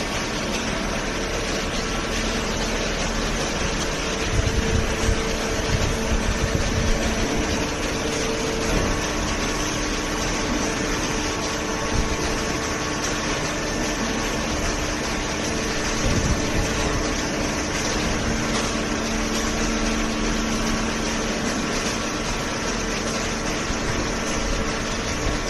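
Vertical cardboard baler's hydraulic motor and pump running steadily, with a hum whose pitch shifts a couple of times.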